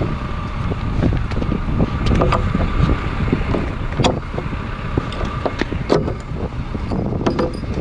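Nails being pried out of a wooden splice joint with the nail puller of a Martinez framing hammer: scattered sharp metal clicks and knocks as the puller bites and the nails pop free. A steady rumble of wind on the microphone runs under it.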